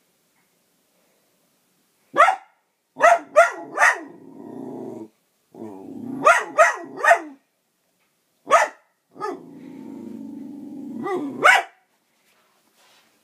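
Dog barking in short runs of one to three barks, with long low growls held between the runs.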